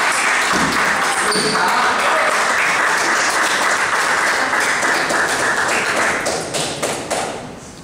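Crowd of spectators cheering and clapping in a large hall after a table tennis point, a dense mix of voices and claps that dies away about six seconds in.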